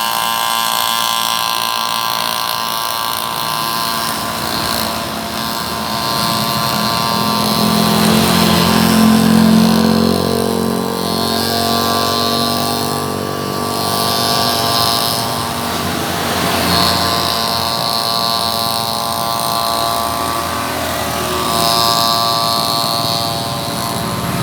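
Grass-cutting machine's small engine running loudly, its pitch rising and falling as the throttle changes.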